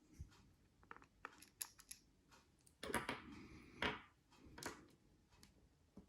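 Quiet small clicks, taps and light scrapes of a fine Phillips screwdriver and a tiny screw being worked into a plastic doorbell housing, with a few louder scraping taps about three to five seconds in.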